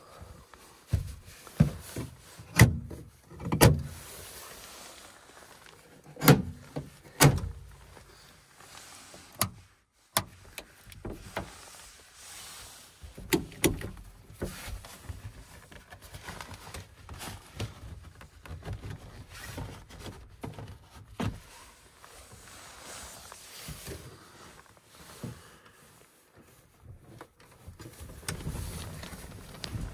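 Lada Niva's interior fittings being worked by hand: a string of sharp clunks and clicks from the door trim, window crank, seat and boot-release lever, the loudest in the first few seconds, with rustling and handling noise between.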